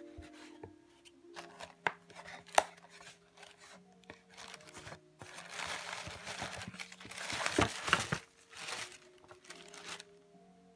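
Tissue paper rustling and crinkling as it is pulled back from cedar shoe trees in a cardboard box, with a couple of sharp knocks from handling the box early on. The rustling is loudest and densest in the middle of the stretch.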